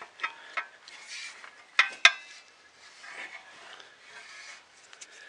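Handling noise from 3D printer kit parts being turned over and worked on a table: rubbing and scraping, with scattered clicks and two sharp knocks about two seconds in.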